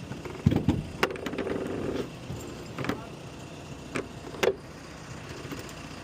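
Scattered sharp knocks and clunks of framing work, with a brief steady machine whine about a second in.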